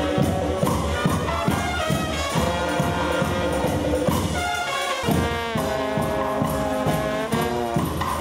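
Costumed carnival brass band playing live: trombones, trumpets and sousaphone blaring a tune over a steady beat. The music jumps abruptly to another passage about five seconds in.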